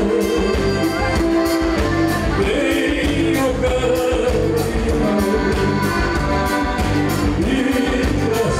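Live southern Brazilian gaúcho music: a man singing to his own button accordion, with sustained accordion chords and a steady beat from the band behind.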